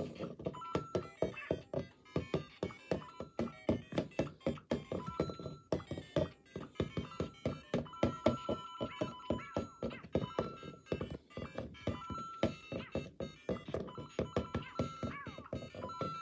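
LEGO Mario figure in its Cat Mario power-up suit tapped against a wall over and over, several plastic taps a second. Short electronic beeps from the figure's speaker answer the steps as it scores coins.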